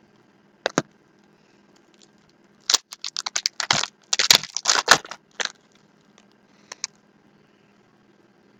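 Basketball card pack wrapper crinkling as the pack is opened and the cards handled: a single click, then a cluster of sharp crackles lasting about three seconds.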